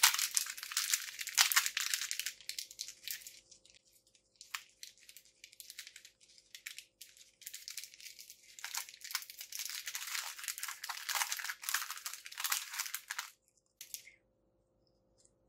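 Foil wrapper of a Pokémon Sun & Moon booster pack crinkling and tearing as it is opened by hand, in two spells: through the first three seconds, then scattered crackles, then a second dense spell from about nine seconds in that stops near the end.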